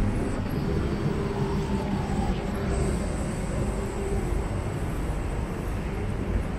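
Steady low rumble of city background noise, with no sudden sounds standing out.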